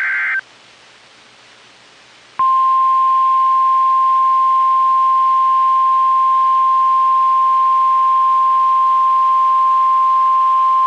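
The last of the Emergency Alert System's SAME digital header bursts, a warbling data screech that ends about half a second in. After about two seconds of quiet, the NOAA Weather Radio 1050 Hz warning alarm tone starts: one loud, steady tone that holds without a break, heralding a tornado warning.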